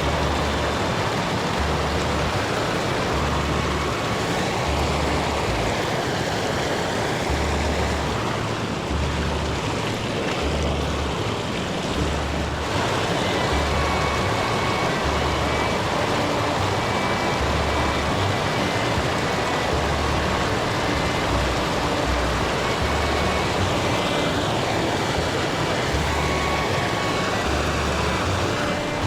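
Rushing stream water as a steady, loud hiss, with background music carrying a regular low beat about once a second.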